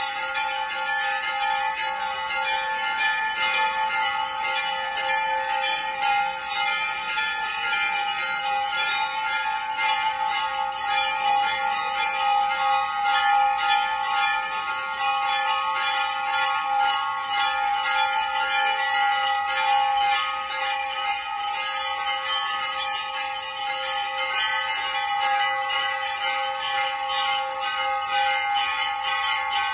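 Brass temple bells ringing continuously during aarti, struck rapidly over and over so the tones run together into one unbroken, steady ring.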